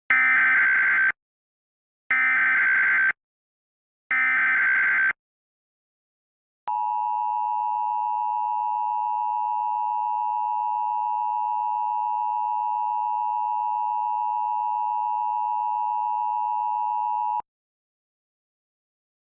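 Emergency Alert System header: three one-second bursts of SAME data tones a second apart, then the EAS two-tone attention signal, held steady for about eleven seconds before it cuts off. It announces an incoming emergency alert broadcast.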